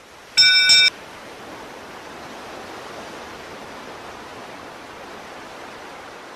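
A steady rush of sea surf, used as an end-card sound effect. About half a second in there is a short, loud, bright chime that cuts off sharply.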